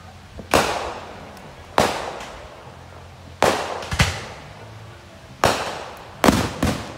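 Aerial fireworks bursting: about seven sharp bangs at uneven spacing, each trailing off in a rolling echo, with two bangs close together near the end.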